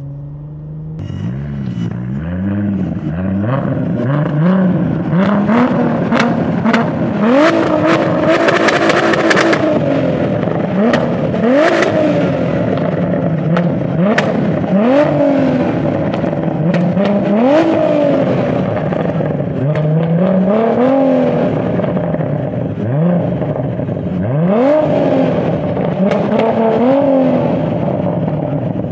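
Turbocharged 3.2L VR6 engine of a Mk IV Volkswagen GTI revving hard, its pitch shooting up and falling back again and again. A cluster of sharp cracks comes about seven to ten seconds in.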